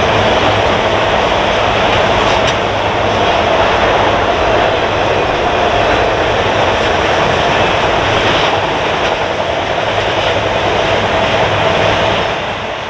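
Freight train's autorack cars rolling past at speed: a steady rolling rumble with a faint steady whine and a few light wheel clacks. The sound fades out near the end.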